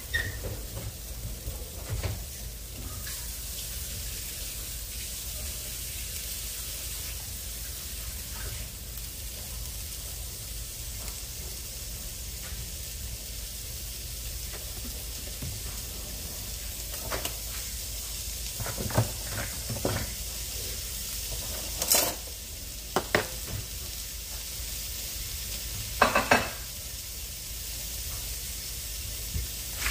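Raw ground sausage sizzling in a skillet as it starts to brown, with a steady hiss. A few sharp clicks and knocks of kitchen utensils come in the second half.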